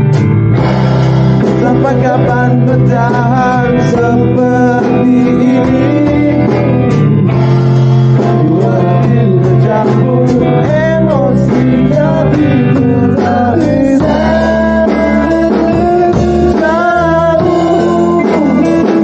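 A song with singing over electric guitar, bass and drums.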